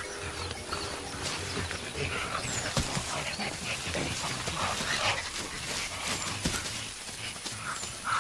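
A mountain gorilla family feeding in thick vegetation: irregular rustling and snapping of plants with short, soft animal grunts.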